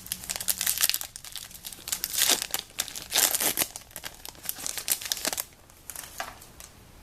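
A foil booster pack of trading cards being torn open and crinkled by hand, a burst of crackling and tearing that dies down about five and a half seconds in.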